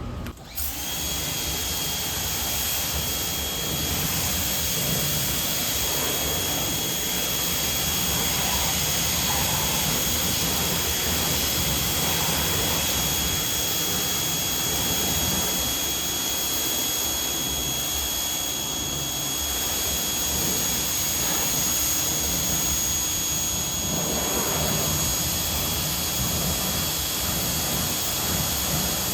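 Active 2.0 electric pressure washer spraying through a 40-degree nozzle on an extension wand, rinsing foam off a car. A steady rush of high-pressure water spray with a thin high whine over it, starting about half a second in.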